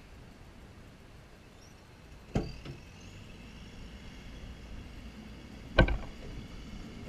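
Two short, sharp knocks on a pickup's hard bed cover as it is handled, the second, about three and a half seconds after the first, louder. Between them there is only a faint steady background.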